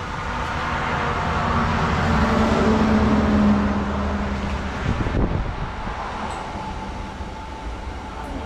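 Electric air compressor running with a steady droning hum that swells for the first few seconds and then settles a little quieter. A single metallic knock sounds about five seconds in.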